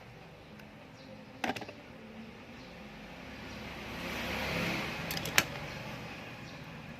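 Small hard parts being handled during a fishing reel repair: a cluster of sharp clicks about a second and a half in, a rustling swell, then a few more sharp clicks just after five seconds, over a low steady hum.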